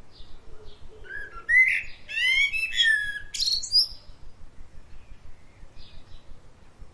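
Blackbird singing one phrase of gliding whistled notes that ends in a higher, squeaky twitter, from about one to four seconds in. Faint short chirps come before and after it.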